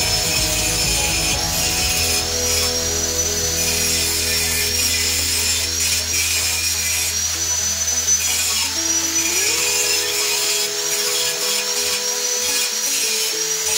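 Electric angle grinder whining steadily as it grinds down the weld joints of a steel bicycle frame, its pitch wavering as the disc is pressed against the metal and eased off. It is smoothing off the weld marks to finish the joints.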